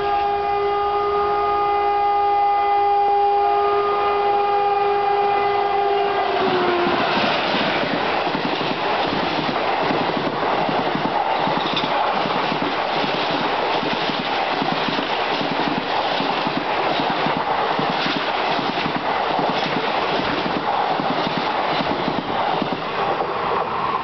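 Express train passing at speed: the locomotive's multi-tone horn blows steadily for about six seconds and drops slightly in pitch as the locomotive goes by. Then comes the loud rushing and rhythmic clatter of the coaches' wheels over the rails.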